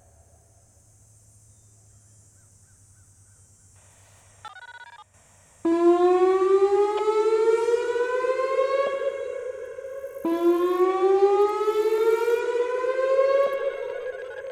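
Whelen WPS-2910 electronic outdoor warning siren sounding its whoop tone, which starts about five and a half seconds in: a loud tone that sweeps steadily upward over about three seconds, holds briefly, then drops and sweeps up again, repeating roughly every four and a half seconds. A brief tone burst comes just before the first sweep.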